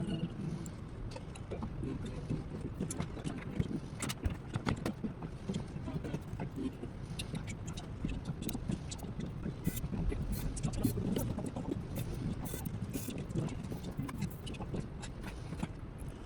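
Typing on a VN66 mechanical keyboard with Krytox-lubed Glorious Panda tactile switches, a brass plate and GMK keycaps: a fast, irregular run of key clicks and clacks, over a steady low rumble.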